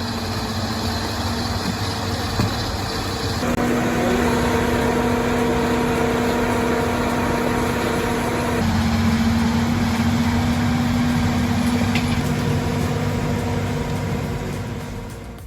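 Heavy diesel machinery engine running under load, a steady note that steps up about three and a half seconds in and shifts again a little after eight seconds.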